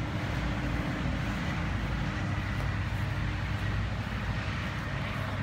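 Lawnmower engine running steadily, an even drone with no change in pitch.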